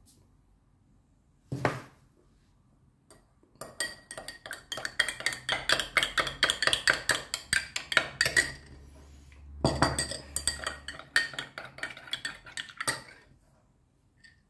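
Metal teaspoon stirring turmeric into milk in a small drinking glass, clinking quickly against the glass several times a second in two spells with a short pause between. A single knock comes a couple of seconds before the stirring starts.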